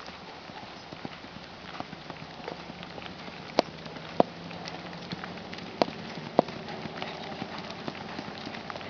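Hoofbeats of a racking horse moving at the rack, many quick light clicks, with four sharper, louder strikes in two pairs near the middle.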